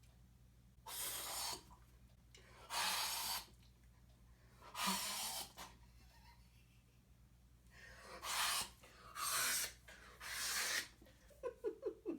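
Six hard, breathy puffs of air blown out by a person, in two groups of three with a pause between, each lasting under a second: a mouth-made imitation of a balloon being blown up, with no real balloon.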